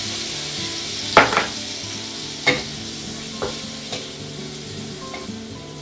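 Barbecued pork sizzling in very hot rice bran oil in a wok, stirred with a wooden spatula that knocks against the pan four times. The sizzle slowly dies down.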